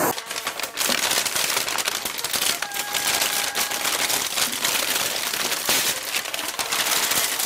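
Thin plastic carrier bag crinkling and rustling as hands open it and handle it, a dense run of crackles.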